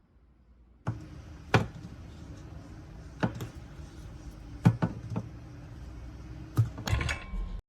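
Sharp knocks and taps, about six, a few in quick pairs, over a steady low hum that cuts off suddenly near the end.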